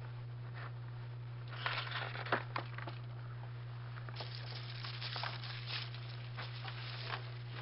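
Rustling, crinkling handling noises and scattered clicks on an old home cassette recording, in two clusters, over a steady low electrical hum from the tape machine.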